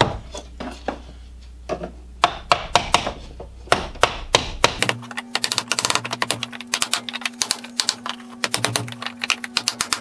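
Hammer tapping a wooden window trim strip into place. A few separate knocks come first, then runs of quick light taps from about halfway, with a steady low hum joining at the same time.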